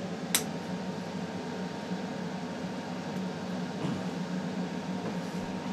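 Steady mechanical room hum, with one sharp click about a third of a second in.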